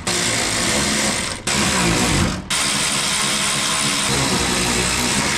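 Cordless electric ratchet running, driving the bolts that hold up a car's belly pan. It runs in long spells with two brief stops, about one and a half and two and a half seconds in.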